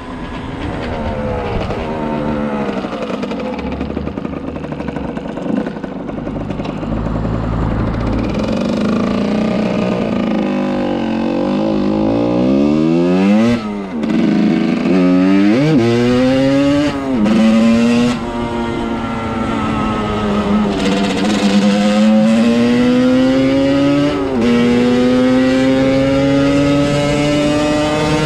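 50cc motorcycle engine accelerating through the gears, its pitch climbing and then dropping at each upshift. A second engine note rises and falls across it about halfway through.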